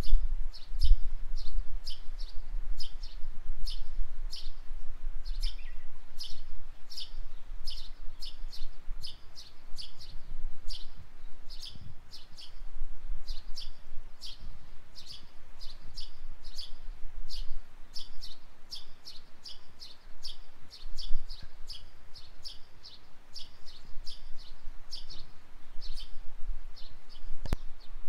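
Songbird chirping in a long, steady series of short high notes, about two or three a second, over a low rumble.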